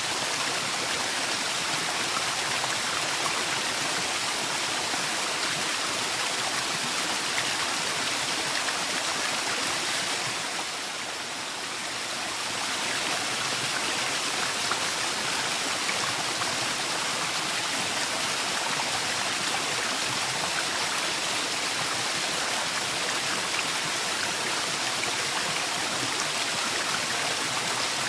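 Waterfall in a forest: the steady rushing hiss of falling water, briefly a little softer about eleven seconds in.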